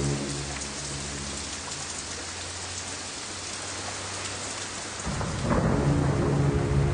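Steady rain, then a sudden rumble of thunder about five seconds in that stays louder to the end.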